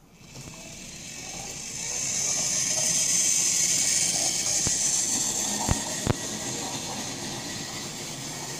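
Model railway locomotive, a Mainline OO gauge GWR 0-6-0PT pannier tank, running along the track with a high hissing whir from its motor and wheels. The whir grows louder as the locomotive comes close and eases as it moves away. Two sharp clicks come about six seconds in.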